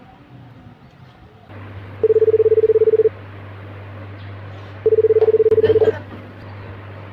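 Phone ringing: two rings of a single fluttering tone, each about a second long, a little under two seconds apart.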